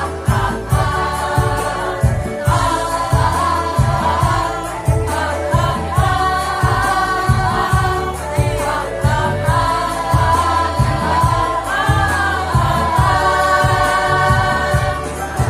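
Women's choir singing in several parts over an accompaniment with a steady, pulsing low beat.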